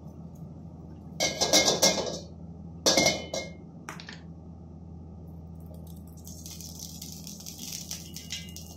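Two short clatters of metal cookware with a ringing clink, about a second and three seconds in. From about six seconds, cooking oil poured into a hot wok starts to sizzle and crackle, over a steady low hum.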